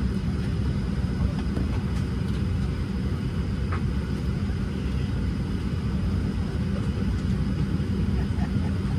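Steady low rumble inside the cabin of a Boeing 737-700 as it is pushed back from the gate, with a few faint ticks.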